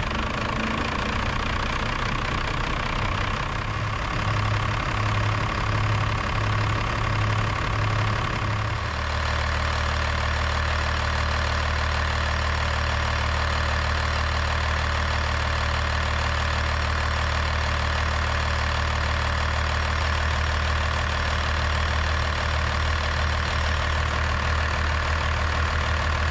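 First-gen Dodge Cummins 12-valve 5.9-litre inline-six turbo diesel idling steadily, just started to warm up. Its low note pulses at first, then drops and settles about nine seconds in.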